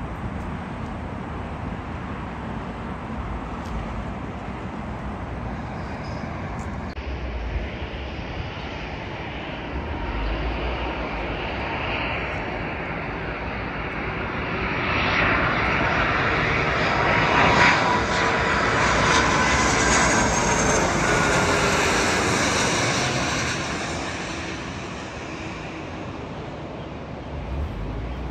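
Jet airliner passing over, swelling from about halfway through to its loudest for several seconds, with an engine whine that drops slightly in pitch as it goes by, then fading near the end.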